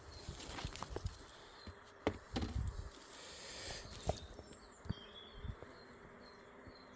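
Honeybees buzzing faintly around an open beehive, with several light knocks as wooden hive parts are handled and put back together.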